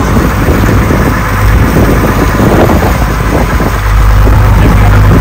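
Motor boat engine running steadily with a low hum, with wind rushing on the microphone.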